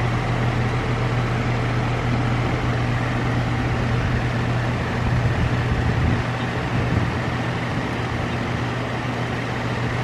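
Goodman 2.5-ton straight-cool air conditioner condenser running: a steady low compressor hum under the rush of the condenser fan. The system is running low on refrigerant from a leaking evaporator coil while it is being charged.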